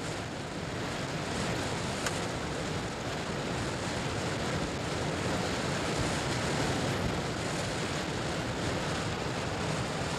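River rapids rushing: a steady sound of fast white water pouring over rocks.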